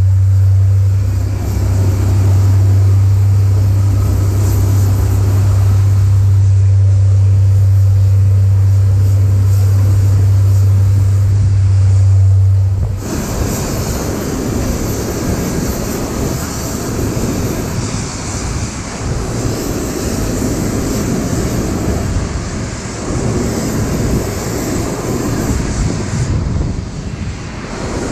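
Airbus A330-200 airliner noise heard from inside the cabin. A loud, steady low hum lasts for about the first thirteen seconds, then breaks off abruptly into a rushing, rumbling noise of engines and airflow.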